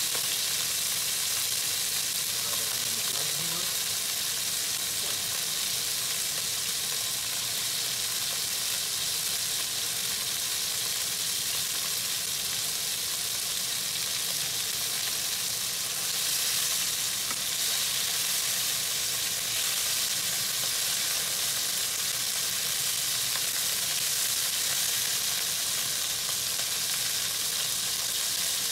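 Chunks of meat searing in hot fat in a pan, with a steady sizzle: the meat is being browned to seal in its juices before it is stewed.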